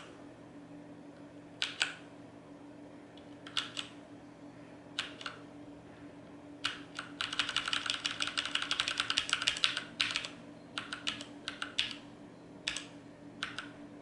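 Mechanical keyboard keystrokes on a HyperX Alloy FPS with Cherry MX switches. Single key presses come a second or two apart, then a quick run of rapid typing about seven seconds in, then more scattered presses.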